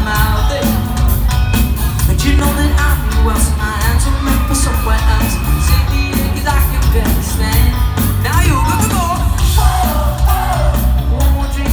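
Pop-rock band playing live over a loud arena PA: a lead vocal sings over drums, bass and guitars with a steady beat and heavy bass.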